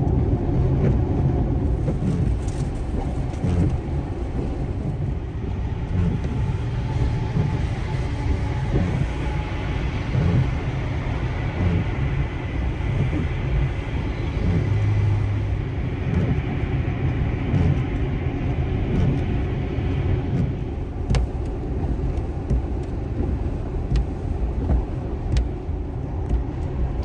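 Steady road and tyre noise of a car driving on a snowy, slushy highway, heard from inside the cabin: a low rumble with a few faint ticks.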